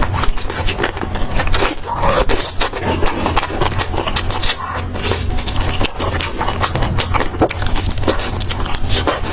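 Close-miked chewing and crunching of fried skewered snacks: dense, irregular crackles and wet mouth clicks with no pause, over a steady low hum.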